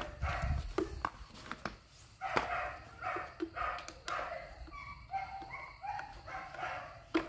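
Light clicks and knocks of the chainsaw's plastic sprocket cover being handled and set onto the bar, with repeated short, high whining calls from an animal in the background.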